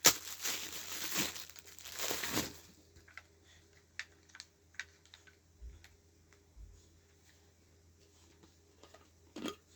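Packaging crinkling and tearing for the first two and a half seconds, then only scattered small clicks and light handling noises.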